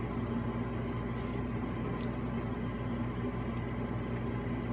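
Steady low electrical or mechanical hum with a faint hiss, the room's background noise, with one faint click about two seconds in.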